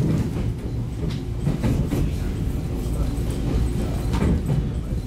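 Running sound inside a JR 115-series electric train's motor car: a steady low rumble of wheels on rail, with a few scattered clicks from the track.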